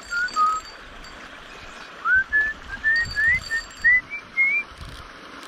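A person whistling a tune of short notes near the microphone, first a falling run, then after a pause of about a second and a half a run that climbs step by step to a higher pitch.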